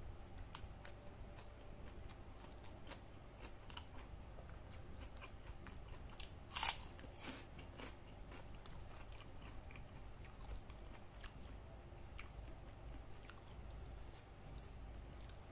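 Close-up eating by hand: small wet chewing clicks throughout, with one loud, crisp crunch about six and a half seconds in as a fried cracker is bitten.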